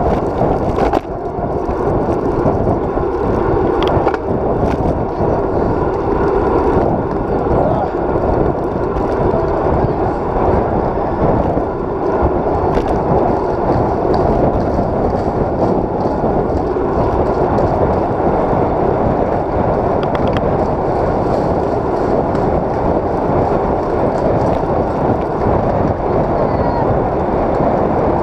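Steady road rumble and wind buffeting picked up by a camera on a road bike's handlebars while riding at speed, with a few sharp knocks and rattles.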